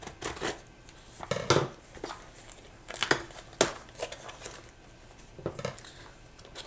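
A delivered package being opened by hand: its wrapping crinkles and tears in a string of irregular sharp rustles and clicks.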